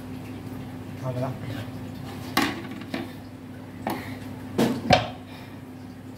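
Kitchen handling noise: a potato peeler, peeled potatoes, a plastic bowl and a wooden chopping board knocking and clattering, about half a dozen sharp knocks with the loudest about five seconds in, over a steady low hum.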